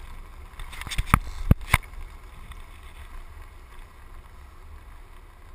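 Land yacht rolling across a dry lake bed: a steady low rumble, broken by four sharp knocks between one and two seconds in.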